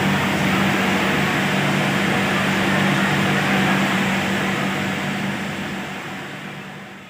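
Steady machine din of a garment factory floor, with the hum of industrial sewing machine motors running. It fades out over the last couple of seconds.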